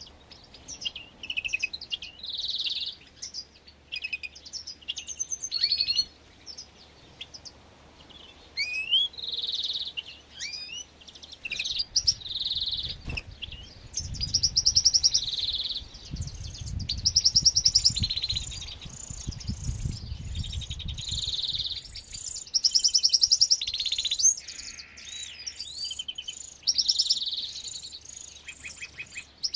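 Small finches in an aviary chirping and singing: a busy mix of short calls, rising whistles and fast trills, thickening into rapid chattering runs about halfway through. A low rumble runs underneath for several seconds in the middle.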